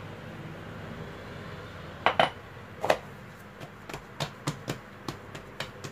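Two sharp knocks about two and three seconds in, then a quick run of lighter taps, from hands and a wooden rolling pin working a sheet of dough on a granite kitchen worktop.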